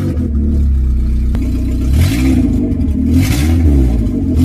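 Car engine, just started, running very loud with its exhaust open, revved up briefly about three times. Its catalytic converter has been cut out of the exhaust with an angle grinder and stolen, so it runs without it.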